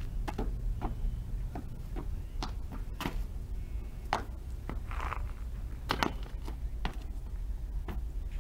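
Footfalls and landings of a person running and vaulting over a planter and metal handrails: scattered sharp thuds and slaps of shoes and hands at irregular intervals, over a steady low wind rumble on the microphone.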